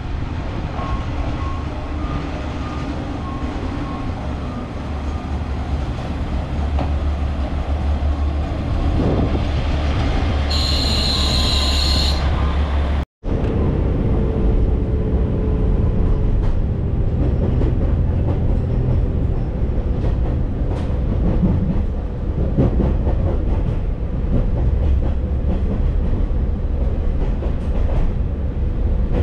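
A diesel railcar pulls into the platform with a low engine rumble, and a high squeal, the brakes, sounds for about two seconds near the end of its approach. After a sudden cut, the train is heard from inside while running: a steady hum with the wheels clicking over the rail joints.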